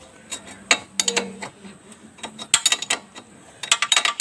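Sharp metallic clicks and clinks of a 19 mm spanner working the motorcycle's rear wheel axle nut loose, in quick clusters about two and a half seconds in and again near the end.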